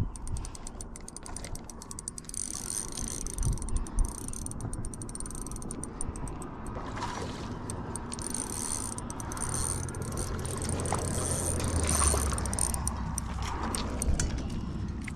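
Fishing reel being cranked with a rapid mechanical ticking while a hooked largemouth bass is reeled in, with a couple of dull knocks from handling the rod.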